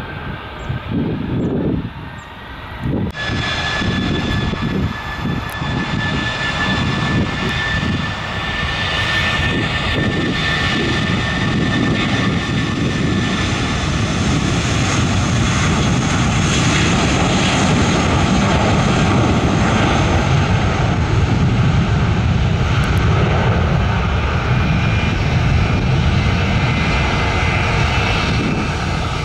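Airbus A320-232's IAE V2500 turbofan engines at takeoff power on the runway: a steady loud jet rush with a high whine, swelling slightly. The sound jumps up suddenly about three seconds in after a quieter start.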